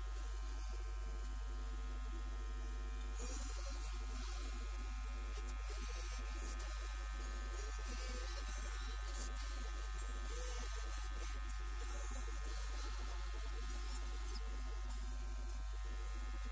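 A steady electrical hum and buzz, loudest in the deep bass and unchanging throughout. A song with sung lyrics plays faintly underneath.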